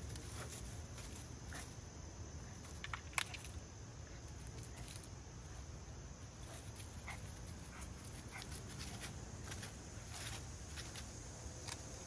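Yorkshire terrier nosing and scrabbling around a woodpile, its paws rustling dry leaves and twigs in scattered small clicks, with one sharper snap about three seconds in.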